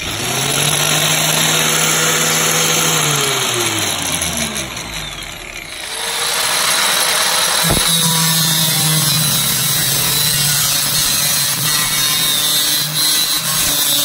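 DeWalt electric angle grinder running at full speed, then winding down with falling pitch. About six seconds in it runs up again and its abrasive wheel grinds sheet metal: a steady motor hum under a harsh high grinding hiss, with a single knock near eight seconds.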